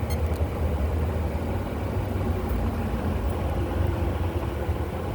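A car engine idling with a steady low rumble, and a few faint light clicks at the very start.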